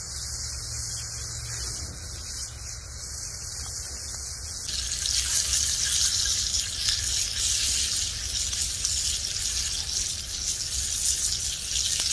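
Thick-cut bacon sizzling in a cast-iron skillet over an open wood fire, a steady hiss that grows louder about five seconds in. A low steady rumble runs underneath.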